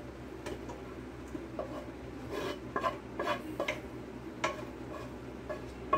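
A utensil stirring and scraping cooked turkey meat in a stainless steel pot, with a run of short metallic clinks and knocks against the pot, busiest in the middle.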